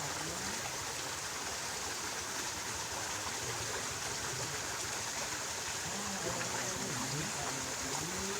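Steady rush of flowing stream water, with a faint voice briefly near the end.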